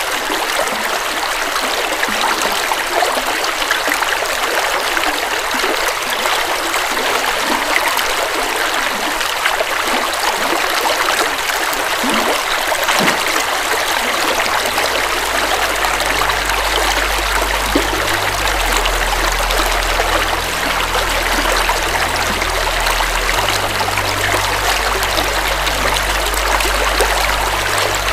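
River water flowing steadily. A low rumble joins in about halfway through.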